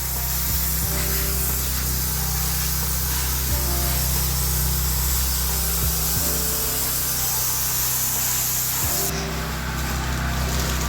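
A pressure washing rig's engine runs steadily with a constant hiss of water spraying, as surfaces are wetted down.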